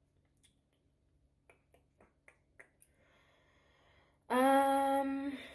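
Light clicks and taps of a dip tub and packaging being handled, then a woman's loud hummed "mmm" held on one pitch for about a second as she tastes the dip.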